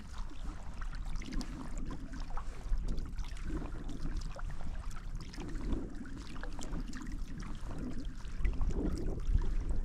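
Kayak paddle strokes in calm lake water, one about every two seconds, with small drips and splashes and water lapping at the hull, over a low steady rumble.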